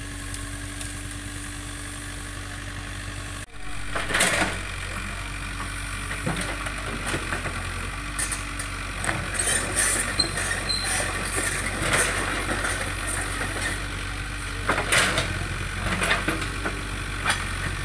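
Excavator engine running steadily at idle, with several short clanks and knocks of metal after a brief dropout about three and a half seconds in.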